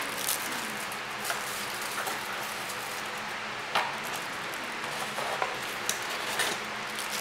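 Plastic accessory bags crinkling and a cardboard box and its insert being handled: a scatter of short rustles and taps over a steady background hiss.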